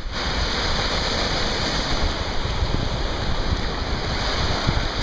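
Small waves breaking and washing over a shallow sandy shore in a steady rush, with wind buffeting the microphone.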